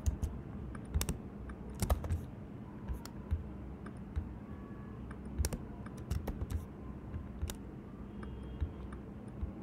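Computer keyboard keystrokes, sparse and irregular: single keys or short runs of two or three, with pauses between, as code is edited.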